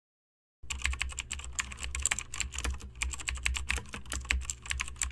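Keyboard typing sound effect: rapid, uneven key clicks over a faint low hum, timed to on-screen text appearing letter by letter. It starts about half a second in and cuts off abruptly at the end.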